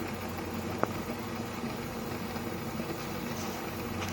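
Wood fire burning in a rocket heater's open feed tube: a steady rush of draft air pulled in through the door, with a single sharp crackle a little under a second in.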